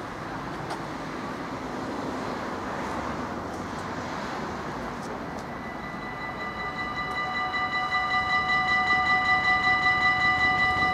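Level crossing warning bells start ringing about six seconds in, a rapid, steady ringing that grows louder, signalling an approaching train. Before that only a steady background noise is heard.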